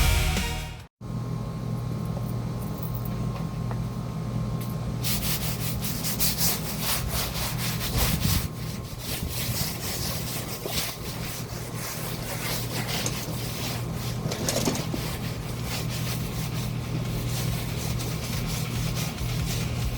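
Rubbing and scraping on stone paving over a steady low hum, after background music cuts off about a second in.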